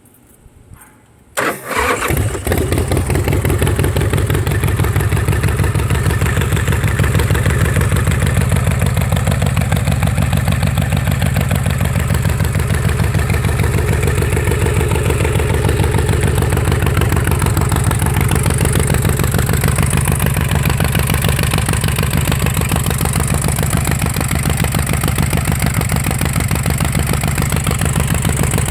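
A custom chopper's S&S Super Sidewinder 124-cubic-inch V-twin starts about a second in, catching at once, then idles steadily through its wrapped stainless exhaust pipes.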